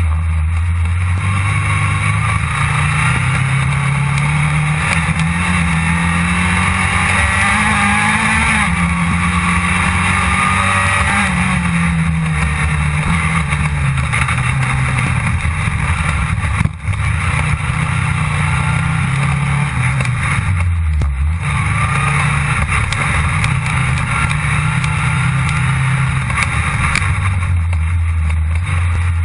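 Rally car engine heard from inside the cockpit, running hard under load, its pitch climbing and falling over and over as the driver works the throttle. The sound briefly drops out for a moment about seventeen seconds in.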